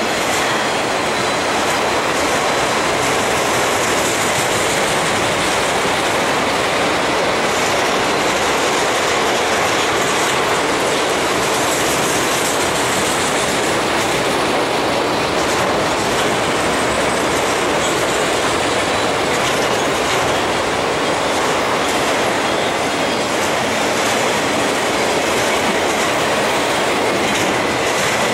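Empty autorack freight cars rolling past at speed: the steady noise of steel wheels running on rail, with a faint high wheel squeal.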